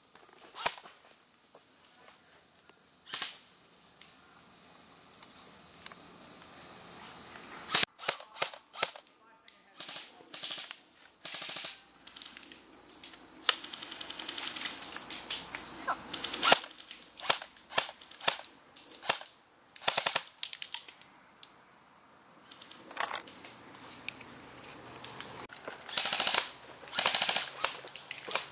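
Airsoft guns firing sharp single pops and short quick strings of shots, scattered through the stretch. Under them is a steady high chirring of crickets.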